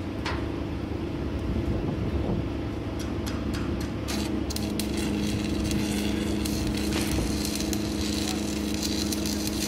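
Electric arc welding crackling steadily as a tack weld is laid on a steel storage-tank shell plate, starting about three seconds in.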